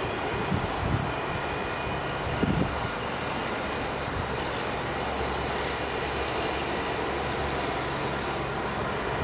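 A steady, even mechanical drone from a distant engine, with a faint high whine in it and no beat or rhythm.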